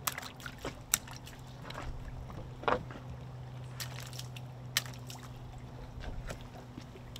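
Scattered light knocks and clicks of a fillet knife and fish being handled on a fish-cleaning table, over a steady low hum. The sharpest knocks come about a second in, near the middle, and again a little later.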